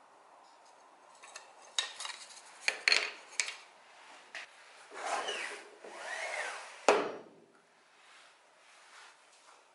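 Thin wooden strips clacking together and being laid down on a sliding table saw's aluminium table, a run of sharp clicks and knocks. Then a stretch of rubbing and sliding, ending in one sharp knock about seven seconds in; the saw itself is not running.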